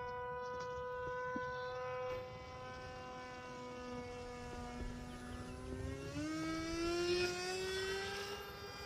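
RC model airplane's motor and propeller whining in flight. A steady whine is joined about six seconds in by a second, lower one that rises in pitch as the sound grows louder.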